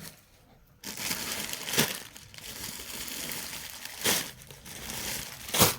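Crinkling and rustling of clothing being handled. It starts about a second in, with three sharper crackles, the last and loudest near the end.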